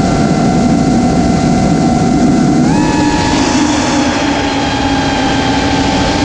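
Eachine Wizard X220 quadcopter's motors and propellers whining in flight, with wind rush, heard from a camera on board. About two and a half seconds in the pitch steps up as the motors speed up, then holds steady.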